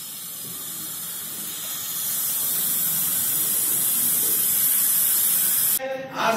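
A steady, high-pitched hiss that swells over the first two seconds, holds, and cuts off suddenly near the end.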